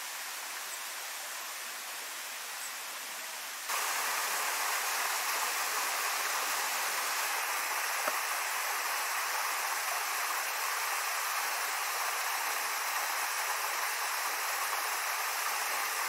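Steady splashing of water flowing over rocks, then, about four seconds in, the louder steady rush of a small waterfall pouring into a rock pool.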